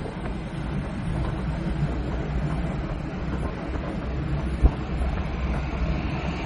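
Steady low rumble of a moving vehicle, with one sharp knock about two-thirds of the way through.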